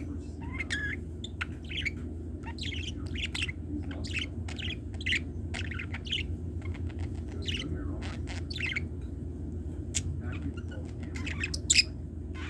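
Pet budgerigar chattering in a rapid, irregular string of short chirps and squeaks, with a few sharp clicks among them. A steady low hum runs underneath.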